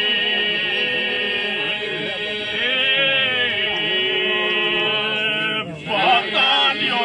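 An Albanian folk group singing a partisan song in several voice parts, with long drawn-out melodic lines over a steady held drone. The singing breaks off briefly about six seconds in, and a new phrase starts.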